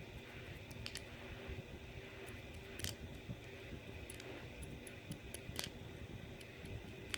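A few light clicks and ticks of small metal parts and tools being handled on a disassembled lock cylinder, over a steady low hum.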